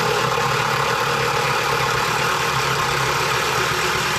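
Power drill running steadily under load, driving a screw in.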